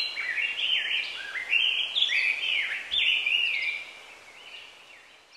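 A songbird singing a run of quick chirped phrases that sweep up and down in pitch, fading out in the last second or so.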